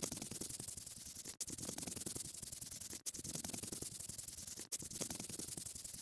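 Scratchy rubbing sound effect of colouring in, repeating in stretches of about a second and a half with a very short gap between each.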